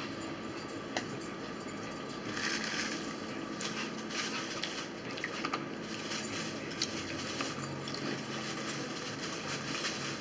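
Quiet room with faint rustling and a few light clicks: small handling noises at a dining table.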